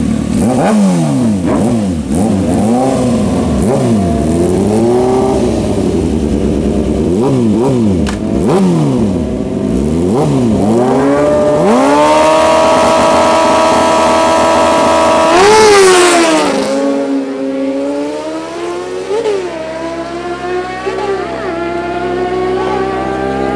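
Superbike engines revving hard in repeated quick blips, then held at high revs for a few seconds. About 16 seconds in there is a loud burst, and the engine note then climbs slowly and steadily as a bike pulls away down the strip.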